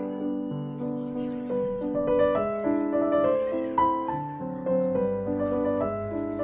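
Background instrumental music led by piano, a melody moving over held lower notes.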